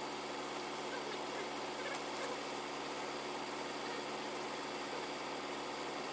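Crane truck's engine idling steadily, an even hum with a couple of faint ticks about two seconds in.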